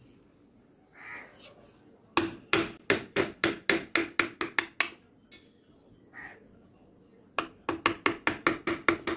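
A wood-carving gouge being driven through the wood by quick, light mallet taps on its handle, about five taps a second. There are two runs of a dozen or so taps: the first starts about two seconds in, and the second starts about seven seconds in.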